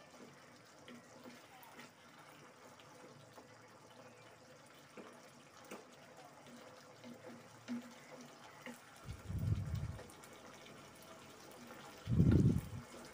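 Wooden spatula stirring a thin tomato sauce in a pan: faint wet sloshing with small scattered ticks. Two louder low bumps come about nine and twelve seconds in.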